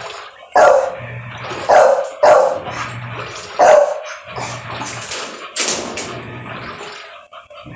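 A dog barking repeatedly, about five sharp barks a second or so apart, over a low hum that cuts in and out.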